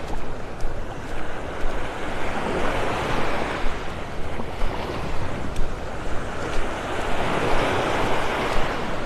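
Small Gulf of Mexico waves breaking and washing up the sand at the waterline, a steady hiss of surf that swells louder about three seconds in and again near the end, with wind buffeting the microphone.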